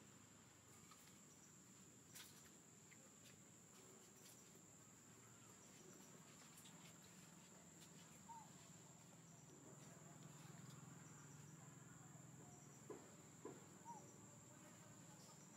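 Near silence with a faint, steady high-pitched insect drone, and a few faint short chirps about eight seconds in and again near the end.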